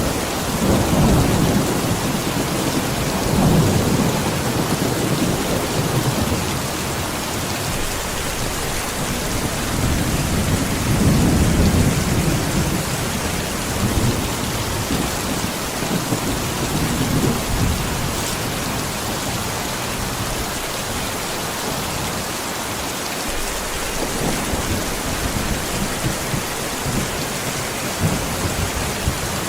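Steady heavy rain falling, with low rolls of thunder rumbling in the first few seconds and again around ten to twelve seconds in.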